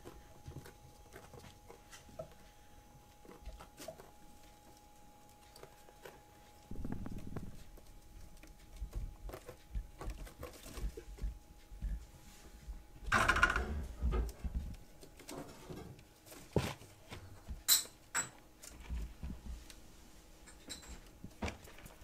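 Kittens playing and scuffling: light pattering and scrabbling of small paws on cardboard and floor, with a louder scrabbling scuffle a little past the middle and a few sharp clicks after it.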